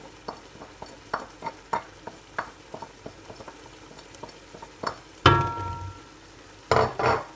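Chicken mince frying in a pot with a faint sizzle as spices are tipped in and stirred, with many light clicks and scrapes of the utensils. About five seconds in a utensil strikes the cookware with a single loud ringing clang, and a few louder knocks follow near the end.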